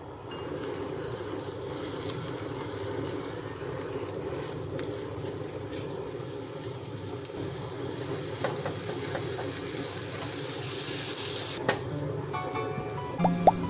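Chunks of potato frying in a frying pan, a steady sizzle that grows stronger and then cuts off sharply near the end. A couple of sharp knocks of the pan follow.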